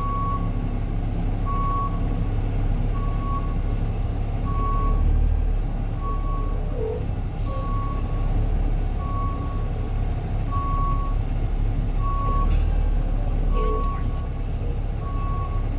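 Concrete mixer truck's reverse alarm beeping about once every second and a half over the low, steady running of its diesel engine as the truck backs up.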